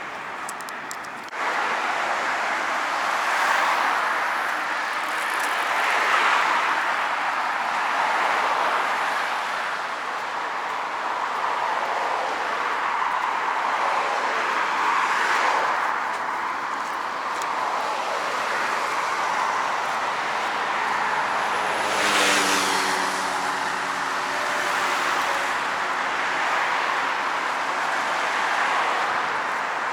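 Road traffic: a hiss of cars going past that swells and fades one after another, starting abruptly about a second and a half in. One louder vehicle passes about two-thirds of the way through, carrying a slightly falling engine tone.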